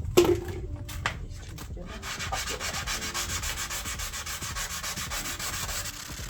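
Sanding on car paintwork: a couple of knocks in the first second, then about two seconds in a steady, fast rasping of abrasive rubbing over the body panel that runs on, as the old paint is blended in.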